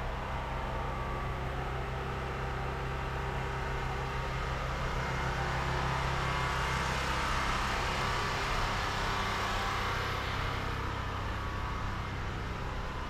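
Street ambience with a steady low hum; a passing vehicle swells up over a few seconds, loudest about two-thirds of the way through, then fades away.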